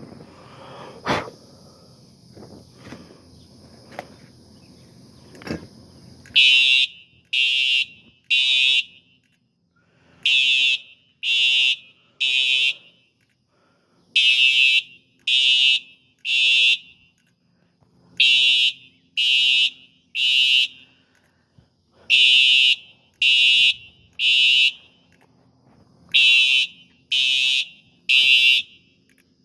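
Fire alarm sounder on a System Sensor smoke detector test, going into alarm from the smoke: loud, high-pitched beeps in groups of three with a pause between groups, the temporal-three evacuation pattern, starting about six seconds in. Before it there are a few clicks and wind noise.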